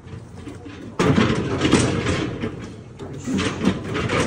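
Steel cattle crush clattering and rattling as its head gate is worked, in a loud bout starting suddenly about a second in and another near the end.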